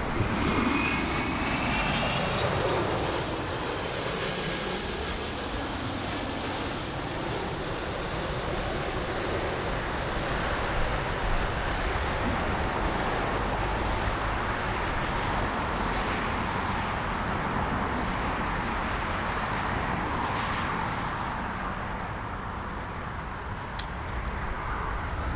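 Jet airliner engines passing the microphone: a whine falls in pitch over the first few seconds, then a steady rushing engine noise carries on. Gusty wind rumbles on the microphone underneath.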